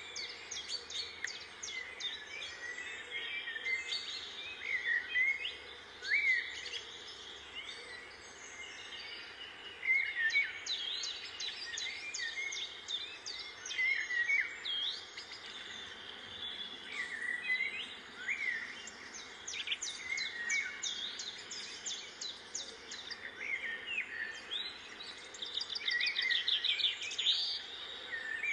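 Small birds chirping and calling over and over in short, separate notes. Near the end the chirps come faster and closer together.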